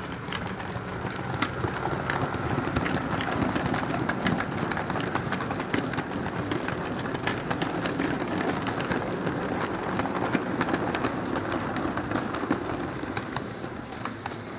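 Model train's wagons rolling past close by, the wheels clicking over the rail joints in a steady rattle that swells as the train goes by and fades near the end.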